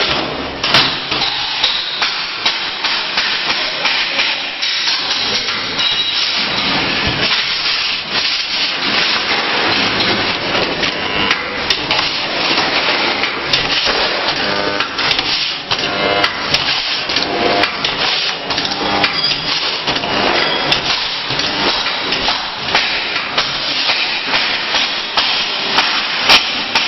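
Spot welding of sheet steel: a continuous loud, noisy din studded with many sharp cracks and knocks as the welder's electrodes clamp the panels and fire.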